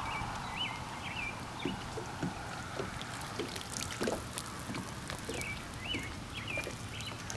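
Lakeside ambience with water lapping. A songbird sings a short sweeping whistled phrase at the start and repeats it near the end. In between come a few small knocks and rattles as a fishing rod and a small hooked fish are handled and the fish is unhooked.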